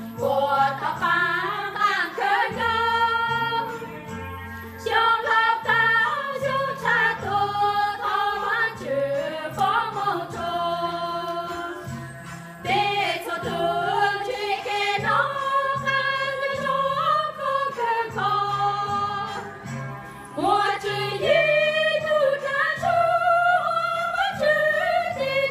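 A small group of women singing a church song together, in phrases with short pauses between them, over an accompaniment of steady low bass notes.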